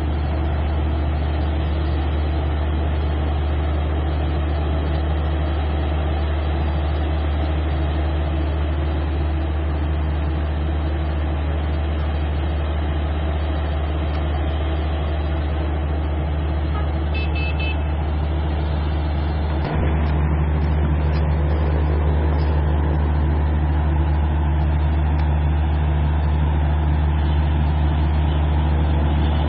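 An engine idling steadily with a low droning hum, getting slightly louder about two-thirds of the way through.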